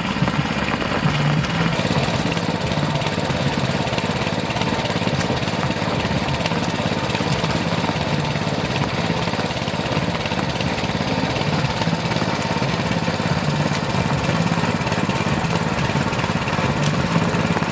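Small engine of a water pump running steadily at constant speed.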